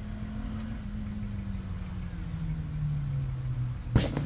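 Rally car engine idling at the start line, its steady note drifting a little lower over the first few seconds. A single sharp knock about four seconds in.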